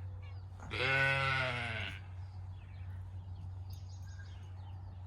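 A sheep bleats once, a single call lasting about a second, over a low steady hum.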